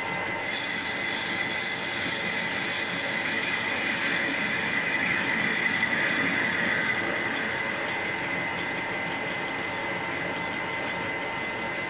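Metal lathe running while the tool faces off a cylinder end plate: a steady high whine over the hiss of cutting, louder for a few seconds midway.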